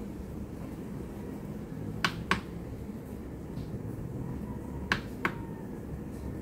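Two pairs of sharp clicks from the Fantech Atom96 keyboard's lighting-mode knob being pressed, each pair about a third of a second apart, over a steady low hum.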